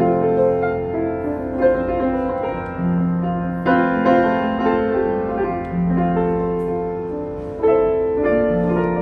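1984 Yamaha U3 upright piano being played: a slow piece with a melody over held low notes, and fuller, louder chords struck about four and eight seconds in.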